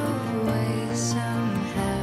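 Background music: a slow song with sustained notes.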